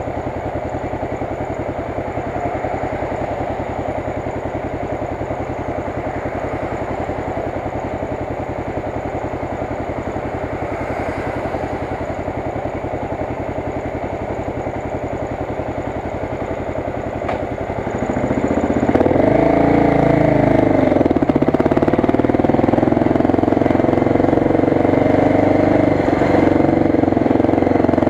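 1986 Suzuki DR 600's single-cylinder four-stroke engine idling steadily, then about 18 seconds in it revs up and gets louder as the bike pulls away, pitch rising and dropping once before it settles into a steady run.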